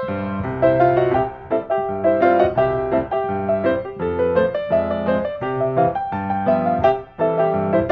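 Background music: a keyboard tune of quick piano-like notes, with a brief drop in loudness about seven seconds in.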